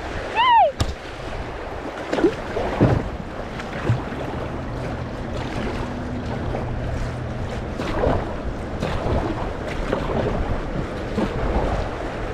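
Kayak running a shallow river rapid: steady rushing water and wind on the microphone, with occasional splashes and knocks of the paddle. A brief high rising-and-falling cry comes right at the start.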